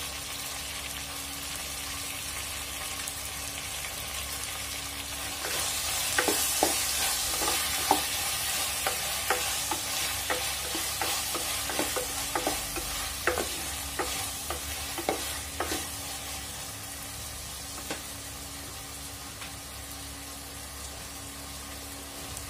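Onions, lamb and tomatoes sizzling as they fry in an open pressure cooker, with a wooden spoon stirring and knocking against the pan. The sizzle grows louder and the spoon knocks come thick and fast from about five seconds in until about sixteen seconds, then the frying settles to a steady hiss.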